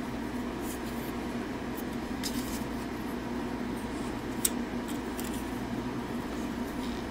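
Plastic joints and parts of a 52Toys BeastBox BB-38 Gunpowder transforming figure clicking softly as its legs are turned and folded by hand, with one sharper click about four and a half seconds in. A steady low hum runs underneath.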